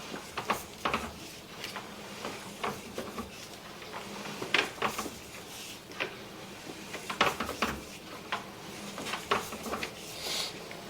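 Sewer inspection camera's push cable being pulled back through the pipe, giving irregular clicks, knocks and rubbing over a low steady hum.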